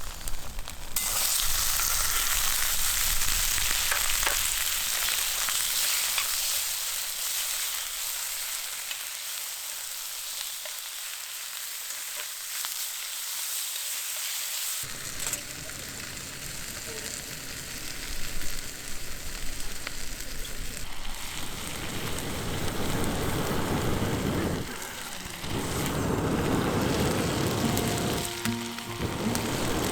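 Food sizzling as it fries in a pan over a campfire, a steady hiss. The sound changes abruptly about halfway through and turns fuller and lower later on.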